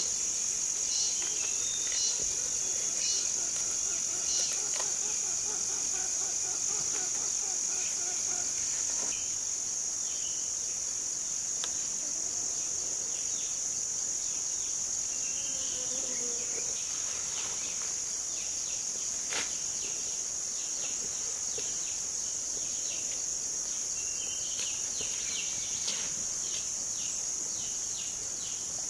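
Steady, high-pitched droning of insects, with faint short bird chirps scattered over it, mostly in the second half.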